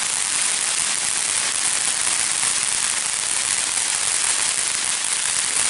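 Ground fountain firework spraying sparks with a loud, steady hiss.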